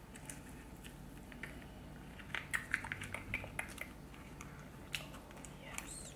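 Someone eating seafood boil in butter sauce: a run of quick wet clicks and smacks, thickest between about two and four seconds in, with a short rising-then-falling squeak near the end.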